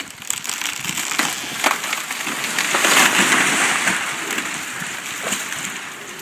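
A large dead ash tree falling, its crown crashing through branches with a rush of cracking and splintering wood that builds to a peak about halfway through and then dies away.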